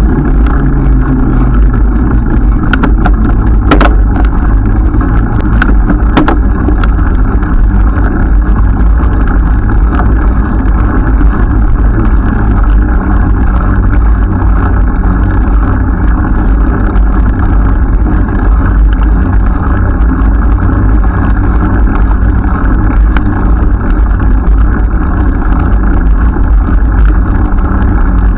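Steady, loud rumble of riding noise, with wind on the microphone and road noise and a faint low hum underneath. A few sharp clicks come in the first six seconds.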